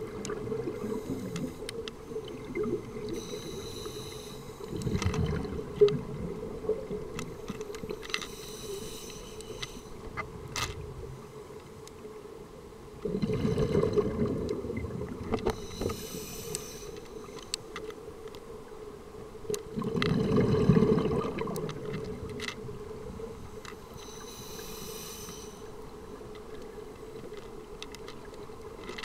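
Scuba diver's regulator breathing underwater: a slow cycle of hissing inhalations, each followed a few seconds later by a bubbling rush of exhaled air, about every eight seconds. Scattered sharp clicks run underneath.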